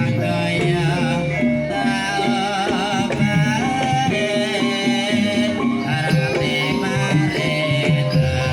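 Banyumasan gamelan music accompanying an ebeg trance dance: many struck, held notes under a wavering sung melody.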